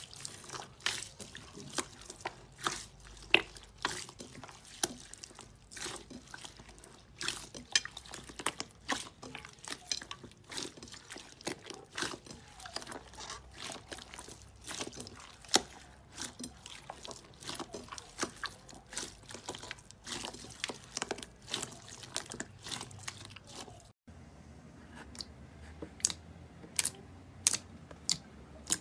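Slime being squeezed and poked by hand, giving a dense, irregular run of wet, sticky crackles and pops. Near the end the sound changes to fewer, sharper pops.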